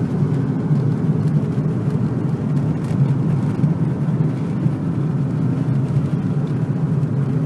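Car driving at a steady speed, its engine and tyre noise heard from inside the cabin as a constant low rumble.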